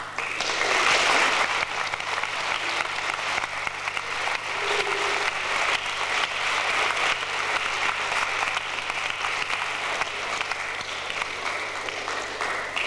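Audience applauding, starting suddenly and keeping up steadily.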